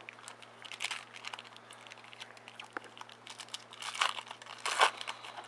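Foil wrapper of a Topps Chrome baseball card pack crinkling and tearing as it is opened by hand, a run of crackles with the loudest rustles about four and five seconds in.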